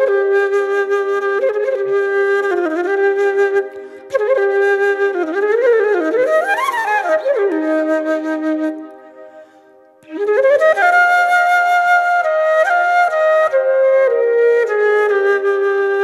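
Solo flute melody of held notes with quick swooping runs up and down in the middle, played in phrases that break off briefly about four seconds in and again for a second or so around nine to ten seconds in.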